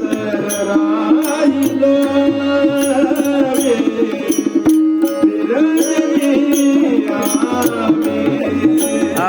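Marathi devotional abhang music: a gliding melody over a steady drone, with a repeating drum rhythm and short high percussive strokes about twice a second.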